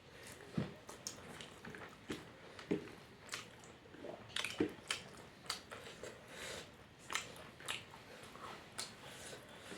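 Close-up eating sounds from someone eating ngahei thongba (fish curry): chewing with wet mouth smacks and small irregular clicks, several a second, and a few deeper thuds.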